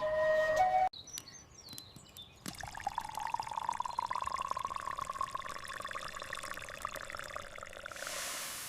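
Water pouring steadily into a small container, its pitch slowly rising as it fills. A flute tune ends about a second in, and there are a few faint clicks before the pouring starts.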